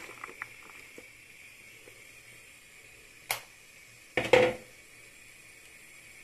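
The last few soaked chickpeas and white beans splashing into a steel pot of water as they are poured in, then a faint steady hiss. There is a sharp click about three seconds in and a louder knock about a second later.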